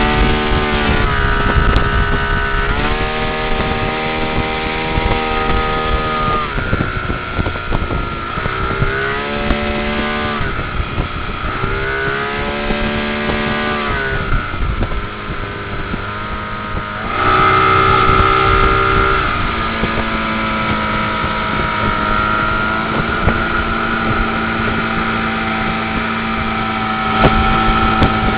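Motorboat engine running steadily, its note rising and falling every few seconds as the revs change.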